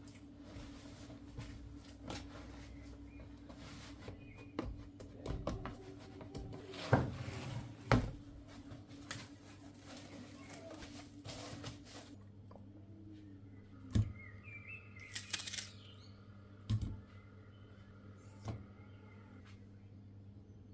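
Kitchen handling sounds while making bread: scattered knocks and clicks, the loudest about a third of the way in and again past the middle, over a steady low hum.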